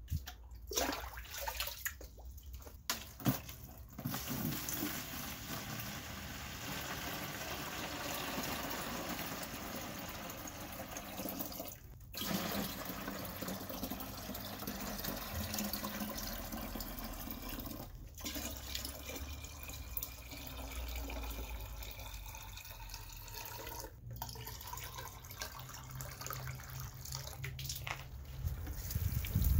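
Water poured in a steady stream into a plastic watering can, splashing onto the water already inside. A few sharp knocks come in the first seconds, and the pour cuts out briefly three times.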